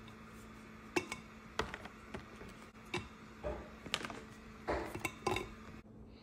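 Cookies being lifted from a plastic clamshell tray and dropped into a glass jar: scattered light clicks and knocks of plastic and glass, some with a short crinkle of the plastic tray.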